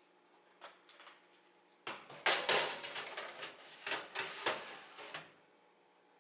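A run of knocks, clinks and rustling, like a dish or container being handled and set down, starting about two seconds in and lasting about three seconds, after a couple of faint clicks.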